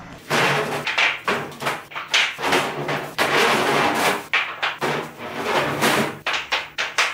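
Wooden lumber boards being dropped and stacked onto a pile on a concrete floor: repeated sharp wooden knocks and clatters, one after another.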